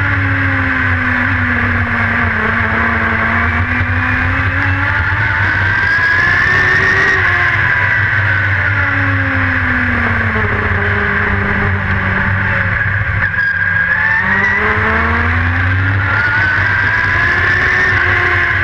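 Dirt-track race car's engine heard from inside the cockpit under a constant low rumble, its pitch falling and rising twice as it backs off for the turns and accelerates down the straights.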